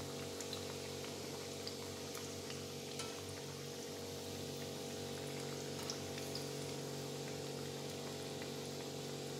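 Banana-flower lentil vadas deep-frying in hot oil: a steady sizzle with scattered small pops and clicks, over a low steady hum.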